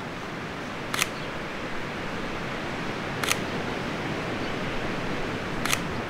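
Camera shutter clicking three times, each a short sharp snap about two and a half seconds apart, over a steady hiss.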